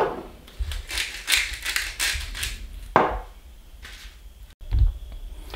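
A salt shaker shaken over raw short ribs in several short, hissy bursts, with sharp knocks as the shakers are set down on a wooden counter. A few dull thumps come from handling the meat trays.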